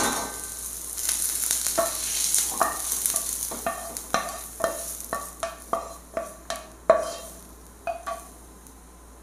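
Sautéed onions scraped out of a pan into a steel bowl with a wooden spatula: a dozen or so sharp knocks of the spatula against the metal, each ringing briefly, over a soft hiss in the first few seconds.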